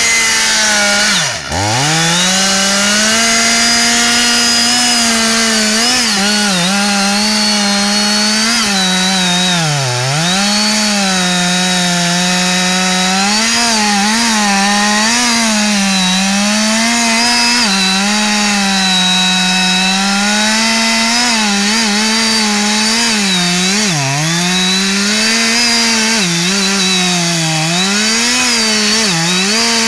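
Two-stroke chainsaw running at high throttle while cutting through a thick tree trunk. Its engine pitch sags and recovers again and again as the chain bites into the wood. About a second and a half in there is a brief sharp drop before it comes back up.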